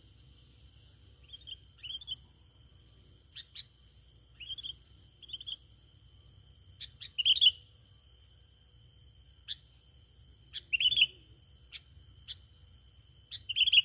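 Sooty-headed bulbul (kutilang) chirping: a string of short, high chirps at uneven intervals, a few of them louder, about seven, eleven and thirteen seconds in, over a faint steady high tone.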